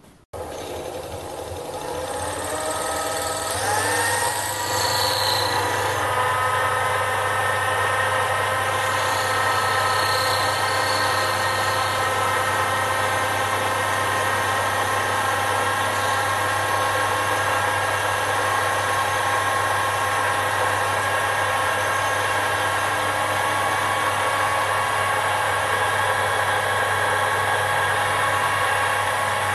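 Sherline micro lathe's motor spinning up with a rising whine over the first few seconds, then running steadily with a steady whine and hum while a carbide boring bar bores a bronze bush.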